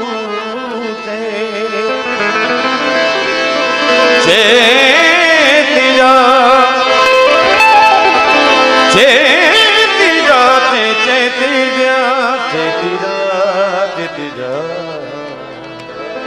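A man's voice holds long, wavering melismatic notes of a Gujarati devotional bhajan over steady harmonium chords. New phrases swell in loudest about four and nine seconds in.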